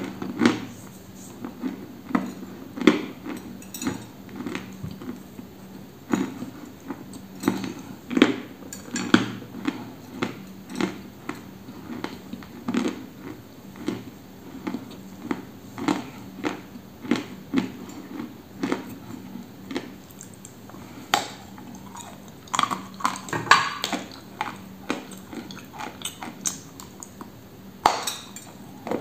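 Close-up crunching and chewing of a dry chunk of edible clay: sharp, irregular crunches, a few a second, as pieces are bitten off and ground between the teeth.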